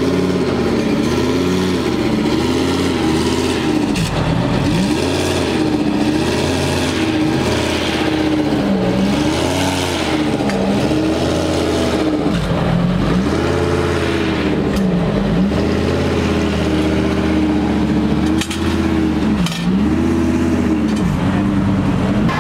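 Race car engine revved again and again while standing still, its pitch rising and falling every second or two: repeated throttle blips, called the best-sounding DTM car there.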